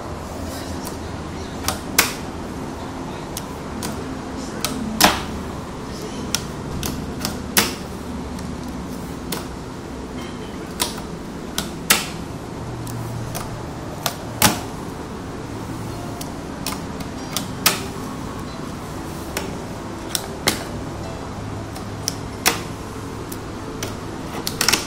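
Sharp pops at irregular intervals, about twenty of them, some in quick pairs, over a steady low hum.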